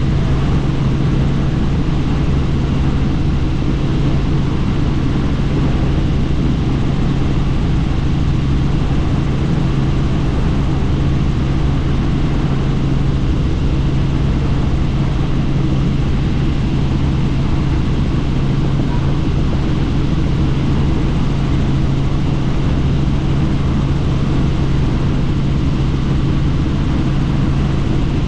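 Helicopter in flight heard from inside the cabin: a loud, steady drone with a constant low hum over rushing noise, unchanging throughout.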